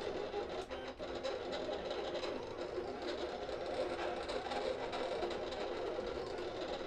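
A small motor-driven machine whirring steadily, stopping near the end.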